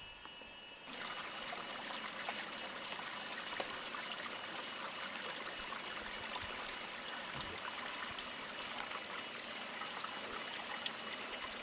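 Steady rush of running water, cutting in suddenly about a second in.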